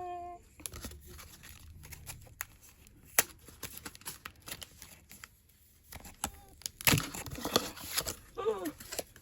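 Foil Pokémon card booster pack being crinkled and torn open, with sharp crackling rips, loudest about three seconds in and again around seven to eight seconds in.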